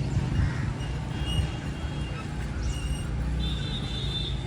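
Road traffic noise with a vehicle engine running steadily close by, a low hum, and a few short high tones over it near the end.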